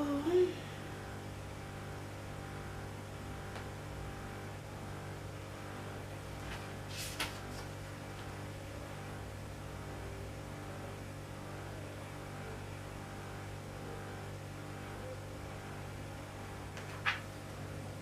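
Steady low electrical hum, with two brief sharp clicks: one about seven seconds in and one a second before the end.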